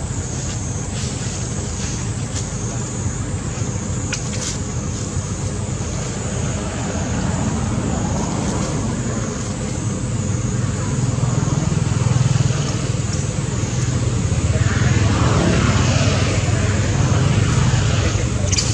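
Steady low outdoor rumble, engine- or traffic-like, growing louder about halfway through, with a faint steady high whine above it.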